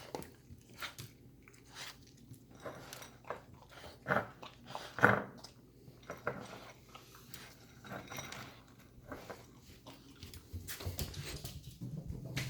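Boston terrier eating, with irregular crunching and chewing. The two loudest crunches come about four and five seconds in.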